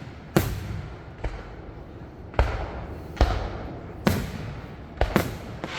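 Aerial fireworks shells bursting, a loud bang roughly every second, each trailing off in an echoing tail, with a few quicker bangs near the end.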